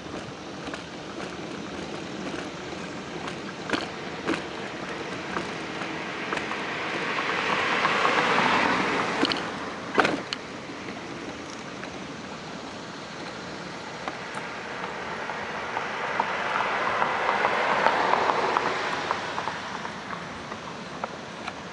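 Road traffic: two vehicles passing on the road, their tyre noise swelling and fading, once about a third of the way in and again near the end, over steady traffic hiss with a few short sharp clicks.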